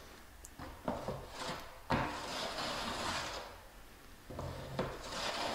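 Tape Pro corner finisher on a pole handle scraping along an internal drywall corner, its two blades smoothing joint compound over the tape. Two long sliding strokes, the first starting about a second in with a sharp knock about two seconds in, the second starting near the end.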